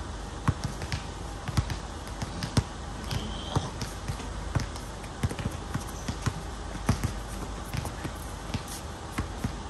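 Basketball dribbled on an outdoor hard court: a run of sharp, irregularly spaced bounces a few tenths of a second apart, with a brief high squeak about three seconds in.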